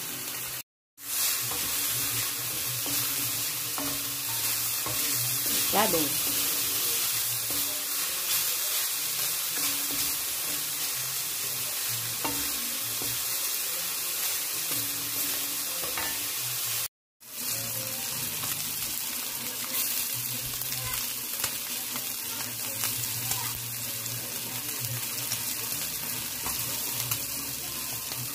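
Sliced pork sizzling as it fries in a stainless steel Saladmaster skillet, stirred and scraped with a wooden spatula. The sizzle is steady, cutting out briefly twice, just under a second in and about seventeen seconds in.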